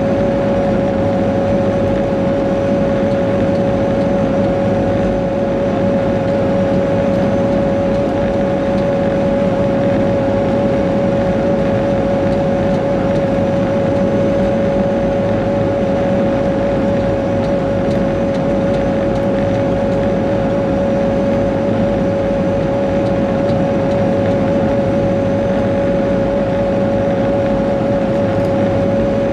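Caterpillar 140G motor grader's six-cylinder Cat 3306 diesel running steadily under way, with a constant high whine riding over the engine sound, heard from inside the cab.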